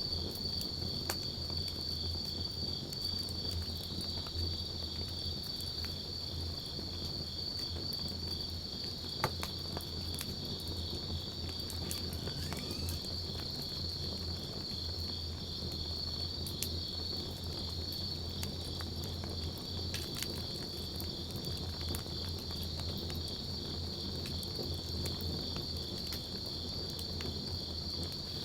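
Wood campfire crackling with scattered sharp pops, the strongest about nine seconds in, over the steady chirring of crickets.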